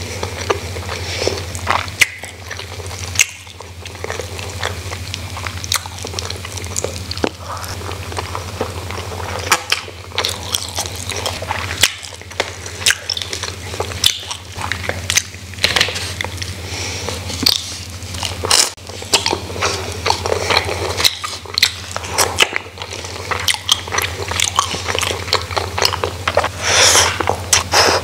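Close-miked chewing and crunching of rice with crispy fried bits eaten by hand, full of sharp crackles and wet mouth clicks, with fingers pulling apart grilled chicken and a denser rustling crackle near the end. A steady low hum runs underneath.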